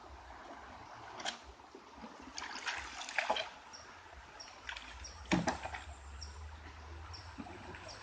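Shallow river water splashing and sloshing in irregular bursts around a river raft being worked upstream against the current, the biggest splash a little past halfway.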